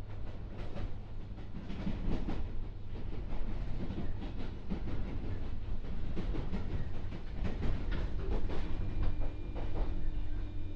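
Interior of a JR 201-series electric train standing at a platform: the steady low hum of the car's onboard equipment, with irregular knocks and clatter. A steady higher tone comes in about three-quarters of the way through.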